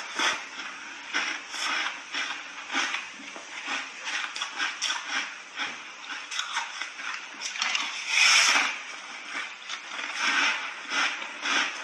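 Crunching and chewing of a frozen pink ice block coated in thick milk powder, in rhythmic crunches roughly two a second. A longer, louder crunch comes about eight seconds in.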